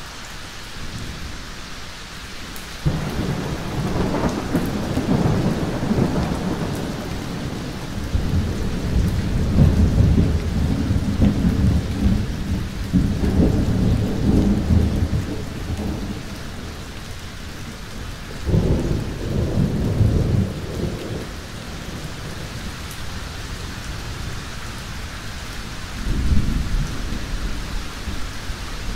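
Heavy thunderstorm: steady rain with rolling thunder. A sudden peal about three seconds in rumbles on for more than ten seconds, a second sharp clap and rumble comes about two-thirds of the way through, and a shorter one near the end.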